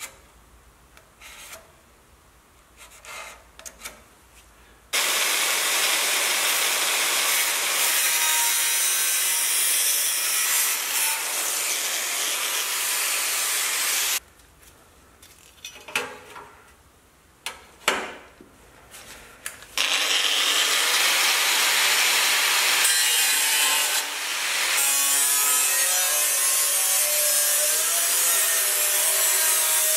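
Angle grinder cutting into the rusty sheet steel at the bottom of a car door frame. It runs in two long stretches, from about five to fourteen seconds in and again from about twenty seconds on, with a pause between them filled with a few small knocks and handling noises.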